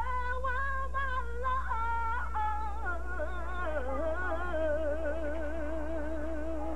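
A young girl singing unaccompanied, moving through several notes and then holding a long low note with a wide vibrato for the last few seconds. A steady low hum runs underneath.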